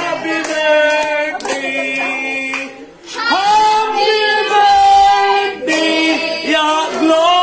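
A voice singing a song in long held notes, breaking off briefly about three seconds in.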